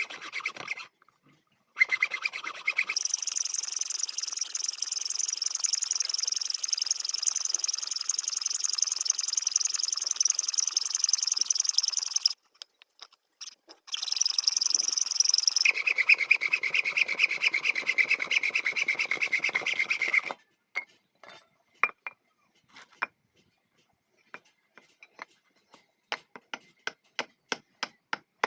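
Rasping and scraping of a hand tool in two long stretches, the second lower-pitched than the first, then a run of light, sharp taps that come quicker and more evenly near the end.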